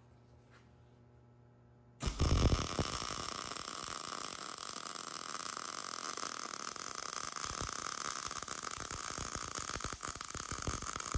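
Wire-feed (MIG) welding arc struck about two seconds in, then running with a steady crackling hiss as an oxygen-sensor bushing is welded onto a steel exhaust adapter.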